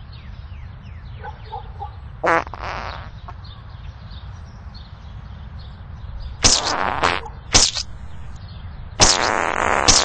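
Four farts: one about two seconds in, two close together around six and a half to seven and a half seconds, and a longer one near the end.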